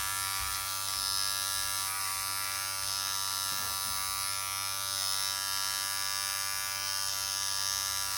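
Electric hair clippers running with a steady buzzing hum, trimming along a hairline.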